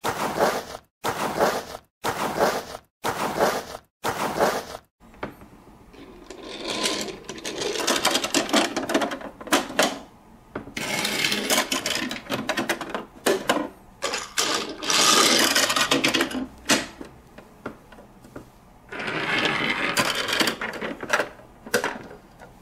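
Small plastic toys being handled on a tabletop: a toy bus rolled and set down, and the toy garage's plastic roll-up doors clicking and rattling. It comes as about five short clattering bursts a second or so apart at first, then longer stretches of rattling.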